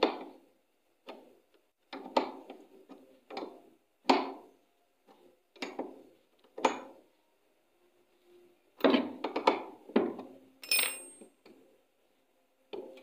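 Metallic clinks and knocks of an open-end spanner working on a washing-machine gearbox pulley. They come as scattered groups of quick strikes, busiest a little after the middle.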